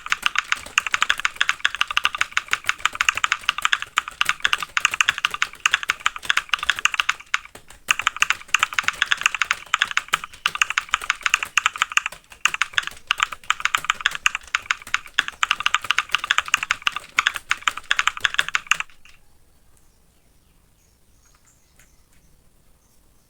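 Fast typing on a computer keyboard: a dense run of rapid keystrokes with a brief pause about seven seconds in, stopping about three-quarters of the way through.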